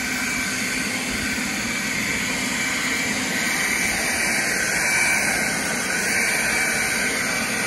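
Greenworks 24V axial-fan leaf blower (BLG306) running steadily: a constant rush of air with a high whine from the electric motor and fan.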